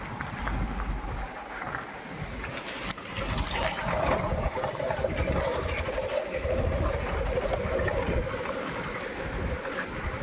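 Wind gusting across the phone's microphone: uneven low rumbling buffets over a steady rush of air, with a faint steady hum in the second half.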